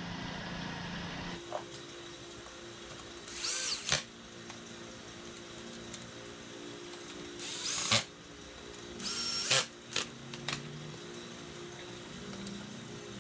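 Cordless drill driving screws in three short runs, each a rising whine that stops sharply, with a few light clicks of parts being handled in between.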